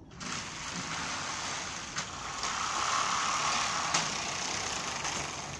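Very large pleated insect screen being pulled along its track: a steady sliding noise that starts just after the beginning, with two sharp clicks about two and four seconds in.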